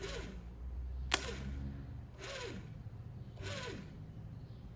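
Classic VW generator run as a motor off a battery, the hot lead held on its D+ terminal: a low hum as it spins, a sharp spark snap about a second in as the lead comes off, then the hum dies away. Spinning like this shows the generator is good.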